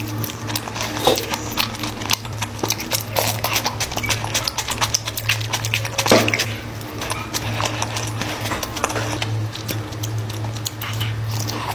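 Close-miked eating sounds: chewing with rapid wet smacking and clicking of the mouth, as fried chicken, rice and egg are eaten by hand. A steady low hum runs underneath.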